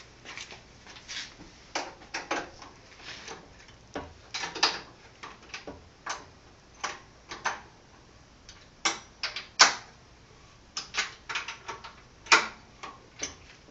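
Supplied spanner tightening the head-clamping bolts on a Harbor Freight 1.5 horsepower mill-drill: an irregular run of sharp clicks and knocks, some in quick clusters, with short pauses between.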